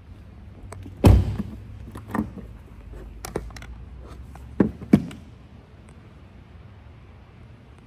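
A car door shutting with a heavy, deep thud about a second in, most likely the rear door of a Lamborghini Urus. A few lighter knocks follow, then two sharp clicks close together around the five-second mark.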